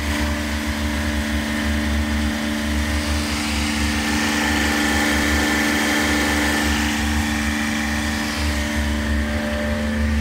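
Cumond CW-DW25 engine-driven high-pressure washer running, its engine and brass-headed plunger pump making a steady hum over an uneven low pulsing.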